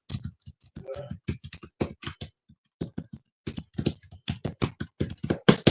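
Typing on a keyboard: irregular keystrokes, several a second, with a short pause about halfway through.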